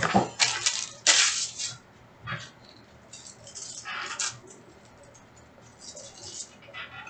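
Sports card packs and cards being handled: irregular bursts of crinkling and rustling, loudest in the first two seconds, with shorter bursts around the middle and again near the end.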